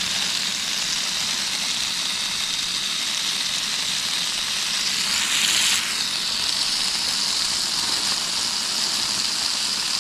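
Water spraying steadily out of the open brass end of a 100 ft expanding garden hose, a steady hiss that briefly grows louder about halfway through as the fitting is handled.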